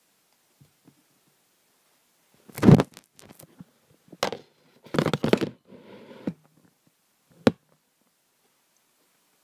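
Handling noise as a camera is picked up, carried and set down: scrapes and bumps rubbing against the microphone. The loudest bump comes about two and a half seconds in, and a single sharp knock follows near the end.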